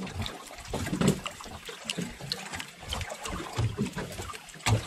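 Sea water sloshing against a small boat's hull, with scattered small clicks and knocks.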